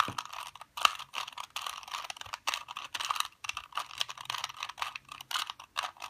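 Plastic 2x2x2 Rubik's Cube being twisted by hand through a solving algorithm: a quick, irregular run of clicks and clacks as its layers snap round, several a second.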